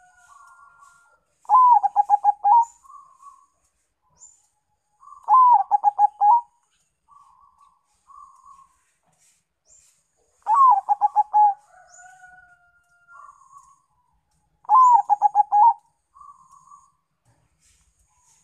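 Zebra dove (perkutut) singing: four loud phrases of rapid stuttering coos, each about a second long and several seconds apart, with softer coos in between. Faint high chirps sound in the background.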